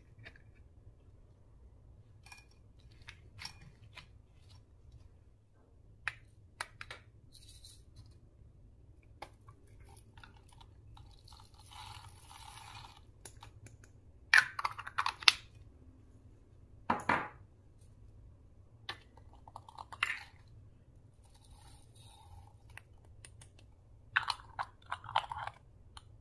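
Slime being squeezed and stretched by hand, giving irregular sticky clicks, pops and crackles. They come in sparse bursts, thickest midway and again near the end.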